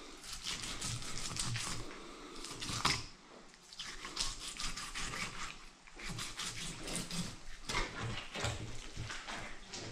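Knife slicing through a northern pike's flesh and scaly skin near the tail: runs of quick scraping cutting strokes in several spells, with short pauses between them.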